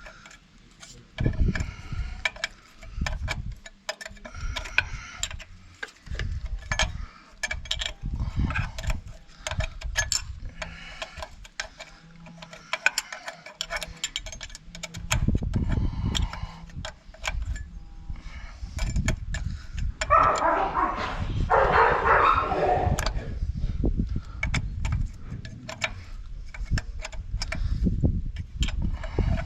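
Irregular clinks, clicks and knocks of tools and metal parts being handled during brake work on a Fiat 640 tractor, with a louder, rougher noise for a few seconds about twenty seconds in.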